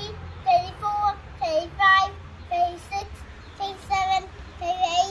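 A young child singing a sing-song tune in a string of about ten short, high notes.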